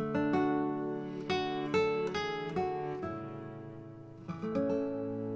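Background music: an acoustic guitar picking and strumming a run of chords, each one ringing out before the next.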